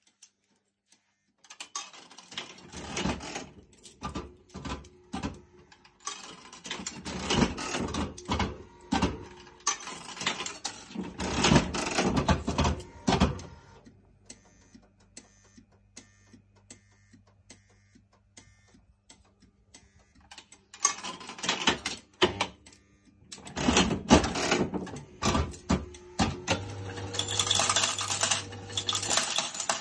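Bally 869 Fire Dance electromechanical slot machine running: two long stretches of dense mechanical clicking and rattling from its reels and works, with a low steady hum in the quieter stretch between them. A steady tone sounds under the clatter near the end.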